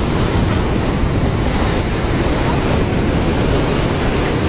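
Wind buffeting the microphone over the rushing of the open sea: a steady, loud, dense rumble with no distinct events.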